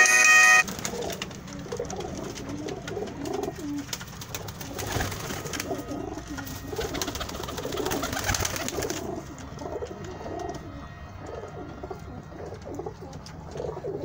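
Domestic flying pigeons cooing, many birds overlapping in a continuous run of low coos. A snatch of music cuts off right at the start.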